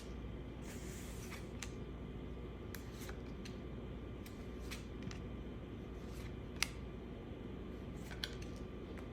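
Trading-card pack being opened and its cards handled: a brief crinkle of the wrapper about a second in, then scattered light clicks and snaps of cards, the sharpest just after six seconds in, over a steady low background.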